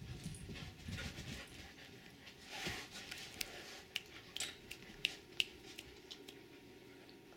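A Doberman pinscher moving about on carpet close by: soft paw thumps as it runs up, a short rushing burst a couple of seconds in, then a handful of sharp clicks.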